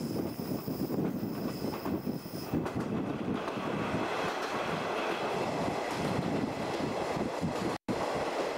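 Running noise of a JNR 50-series passenger coach, wheels on rail, heard from the coach window. A few seconds in the train enters a tunnel and the noise turns into a fuller, steady rush, broken by a split-second dropout near the end.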